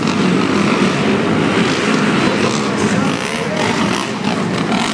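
Several racing quad ATV engines running and revving together in an indoor arena, over crowd chatter.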